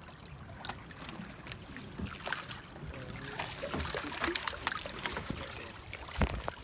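Seawater streaming and dripping off a mesh fish trap as it is hauled out of the sea over the side of an outrigger boat, with scattered knocks and scrapes of the trap's frame against the boat. A heavier low thump comes near the end.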